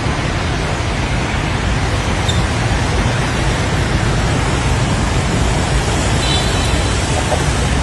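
Strong wind blowing hard across the microphone: a loud, steady rush with a heavy low buffeting rumble.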